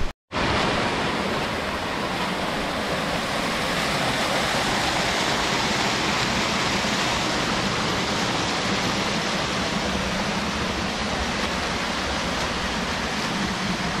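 Steady rushing of a rocky mountain stream and waterfall, an even hiss-like wash of water with no let-up after a brief dropout right at the start.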